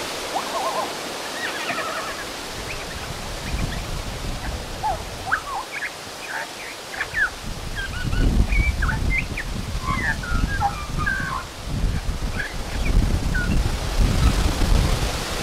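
Australian magpie singing a run of mimicked calls of local wildlife: many short chirps and whistles with quick rises and falls in pitch, coming thicker in the second half. A low rumble runs underneath from about halfway.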